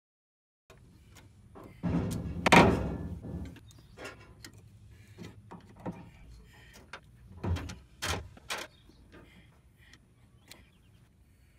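Rubber mallet striking a flathead screwdriver to pry open the bent locking tab on a bolt under a 1967 VW Bus front end: a quick run of knocks about two seconds in, light clicks of the tool on the tab, then three sharp knocks near the eight-second mark.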